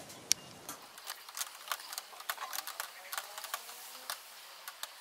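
Faint, irregular crackling and popping from inside the closed grill, several sharp ticks a second, as meat and sausages cook over the heat.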